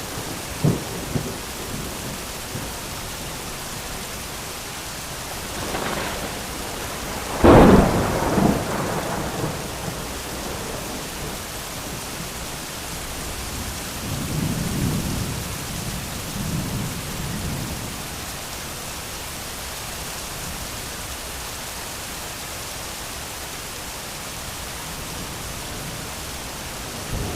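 Steady medium rain with thunder. A sudden, loud thunderclap about seven seconds in trails off into rumbling, and a lower rumble of thunder comes around the middle.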